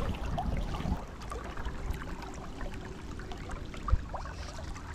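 Steady rush of river water with a low rumble, scattered small knocks, and one sharp thump about four seconds in.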